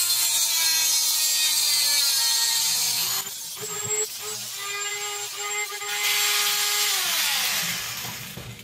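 Dremel 3000 rotary tool with a reinforced abrasive cutting wheel cutting through a sheet-metal duct flange: a high motor whine over the gritty screech of the wheel on the metal. It gets quieter about three seconds in, and near the end the whine falls in pitch as the tool spins down.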